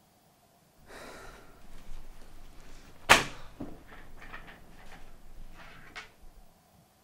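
Rustling and handling noise, with one sharp knock about three seconds in, then the softer knocks and scuffs of an office chair being pulled out from a table and sat in.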